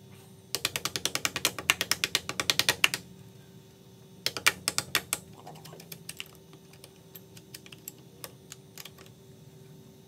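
Hand ratchet clicking rapidly, about ten clicks a second for two and a half seconds. A shorter run of clicks follows about four seconds in, then a few scattered single clicks.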